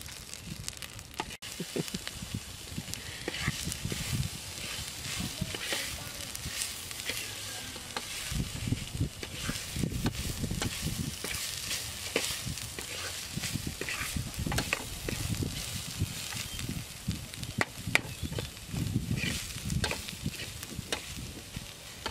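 Long metal spoon stirring and scraping vegetables in an aluminium cooking pot, with repeated clinks against the metal, over the hiss of food cooking in the pot.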